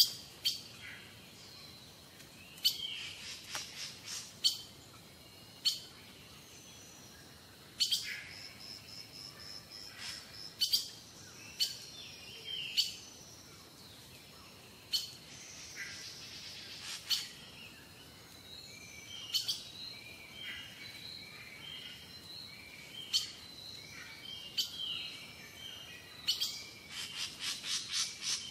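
Birds chirping and calling over and over in short high notes and glides. Now and then there are sharp clicks, including two quick rattling runs of them, one early and one near the end.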